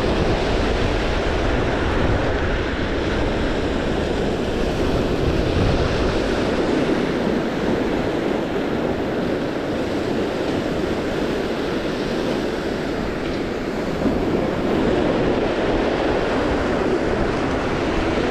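Lake waves breaking and washing over a pebble beach in a steady rush, with wind buffeting the microphone.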